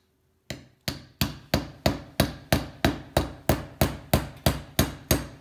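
A hammer tapping a slotted pin into a Steyr AUG receiver assembly. It makes a fast, even run of about fifteen strikes, roughly three a second, starting about half a second in.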